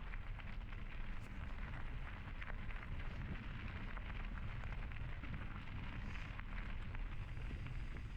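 Mountain bike tyres rolling over a dirt trail with steady crackling and scattered small clicks, under a low rumble of wind on the camera microphone.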